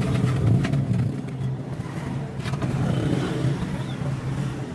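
Motorcycle engine running, a little louder in the first second and then holding steady.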